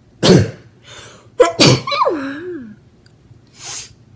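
A woman sneezing into her hand, twice, the second sneeze with a quick double start and her voice falling away in pitch at the end, followed by a short breath in near the end.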